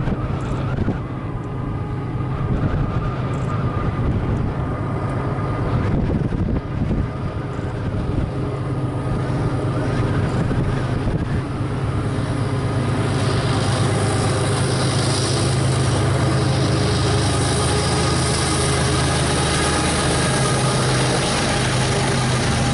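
BNSF freight train's diesel locomotives approaching with a steady low engine drone. Wheel and rail noise grows louder through the second half as the lead units come close.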